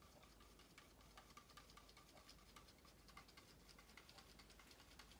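Faint quick ticking and scraping of a stir stick against the inside of a thin plastic cup as paint is mixed to thin it down, several light taps a second.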